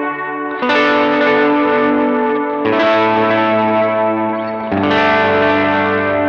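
Electric guitar played through a Very Good Amp Co EP Drive overdrive pedal: three chords struck about two seconds apart, each left to ring out with a lightly driven tone.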